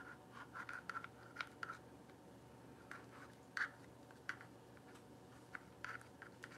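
Stir stick scraping and tapping against the inside of a small plastic cup as paint is worked out and drizzled: faint, irregular scratchy clicks, one a little louder about three and a half seconds in.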